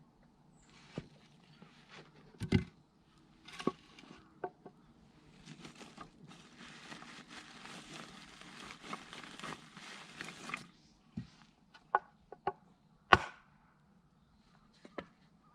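Firewood being split with sharp wooden knocks of a blade on wood, the loudest about two and a half seconds in. From about five seconds in there are several seconds of rustling, then a few more knocks, with a loud one near the end.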